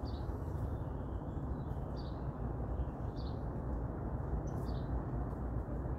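A small bird chirping, short high chirps every second or so, over a steady low rumble of outdoor background noise.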